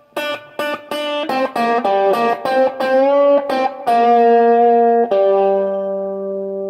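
Electric guitar played through a large reverb pedal: a quick phrase of picked single notes, then two long held notes that ring out and slowly fade.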